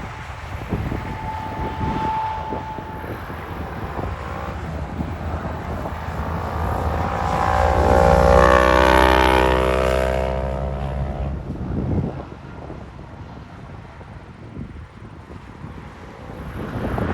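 A semi truck driving past with its engine running, building up, loudest about eight seconds in, then fading away.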